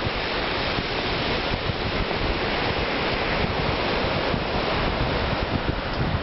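Steady rushing of wind and sea surf, with wind gusting against the microphone in low, uneven rumbles.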